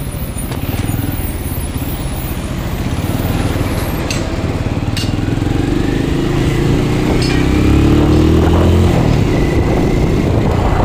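Benelli Imperiale 400's single-cylinder engine running under way, its pitch rising steadily from about four seconds in as the bike accelerates, then dropping back near the nine-second mark.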